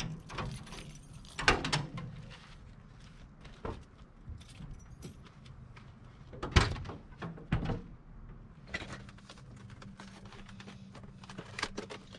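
Van side door being unlocked and swung open: keys jangling, latch clicks and several metal clunks, the loudest about six and a half seconds in.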